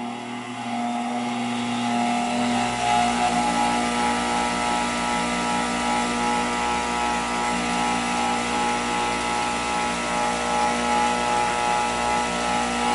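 Variable-speed bench grinder running with a steady hum, growing louder over the first couple of seconds as its speed is turned up, then holding steady. The humming is thought to come from the worn, slightly out-of-balance aluminum oxide wheel rather than the new CBN wheel.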